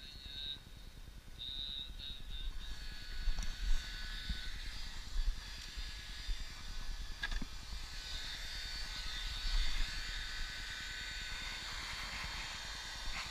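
Knocks and rumble of an action camera being handled, with wind buffeting the microphone. A steady high-pitched whine grows in the background from about three seconds in.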